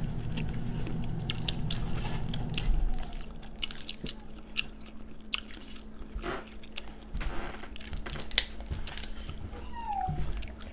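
Close-up eating sounds of someone chewing boiled shrimp: wet chewing and lip smacks with many short sharp clicks. A low hum underneath stops about three seconds in.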